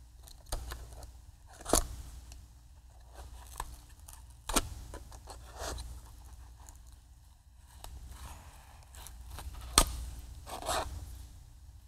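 Scissors snipping and scraping through the cardboard top of a salt canister, with a few sharp snips, the loudest near the end, and cardboard scraping and tearing in between.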